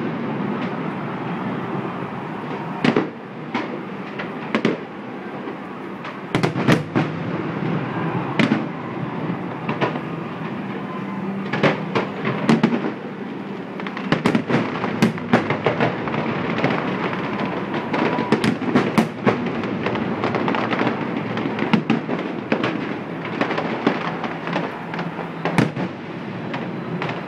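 Fireworks display: many sharp bangs and cracks over a steady rumble, the bangs coming thick and fast about halfway through.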